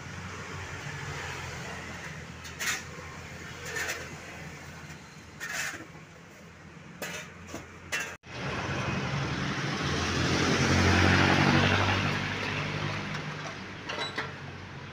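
Clatter of scrap wood, cardboard and debris being picked up and tossed, a handful of sharp knocks over a low engine hum. After that a motor vehicle passes on the street, its engine noise swelling to a peak and fading again.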